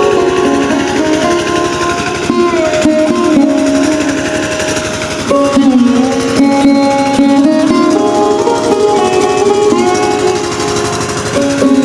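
Background music with plucked string instruments playing a slow melody.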